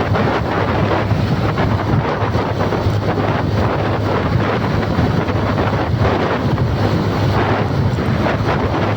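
Steady loud rushing noise like wind buffeting the microphone, with a constant low hum underneath.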